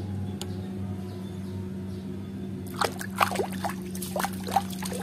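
A hand swishing a plastic toy through a tub of water: a run of irregular splashes and sloshes starting about halfway through, over a steady low hum.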